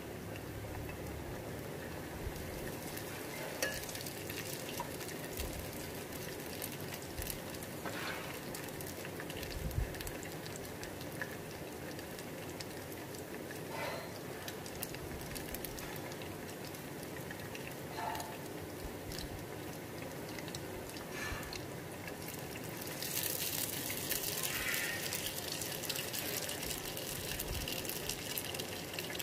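Ghewar batter frying in hot fat in a tall steel pot: a steady crackling sizzle with scattered pops as the batter foams and sets into its mesh, growing louder near the end.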